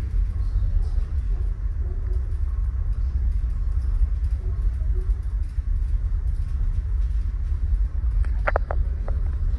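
Steady low rumble aboard a large car ferry under way, with a brief cluster of sharp clicks or clinks about eight and a half seconds in.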